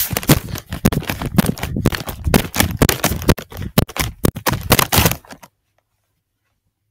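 Rapid, irregular clattering, knocking and scraping from a Chromebook being shaken and handled, picked up by its own built-in microphone; it cuts off abruptly about five and a half seconds in.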